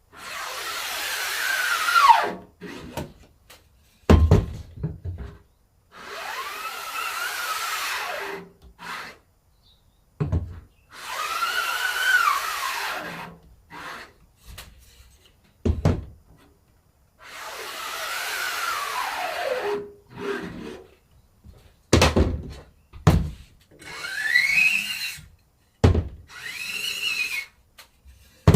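Repeated scraping strokes across a stretched silkscreen mesh, each two to three seconds long with a tone that rises and falls along the stroke, separated by short knocks.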